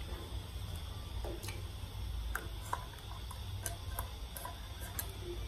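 Scattered light clicks and taps, irregular in timing, as a silicone spatula stirs a pot of sauce and scrapes cream out of a small can, over a steady low hum.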